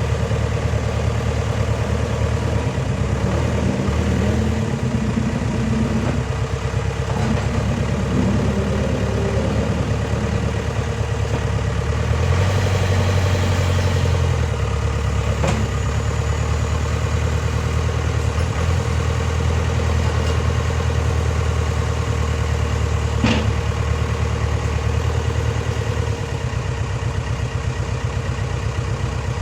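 Backhoe loader's diesel engine running steadily at idle, getting louder for about two seconds partway through, with two sharp clicks later on.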